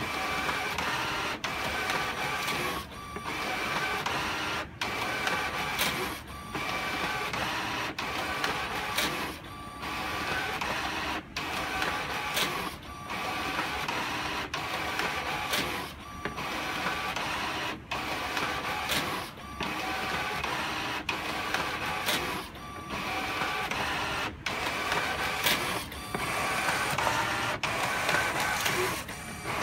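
HP PageWide Pro 577dw inkjet printer running a two-sided print job: a steady mechanical whir of paper feeding, broken by short gaps about every one and a half to two seconds, with a sharp click here and there.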